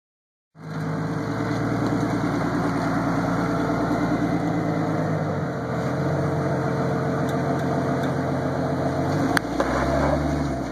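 Jeep Cherokee XJ's engine running at low revs under load as it crawls up a steep rock ledge, its note shifting about halfway through and again near the end, with one sharp click shortly before the end. Silent for the first half second.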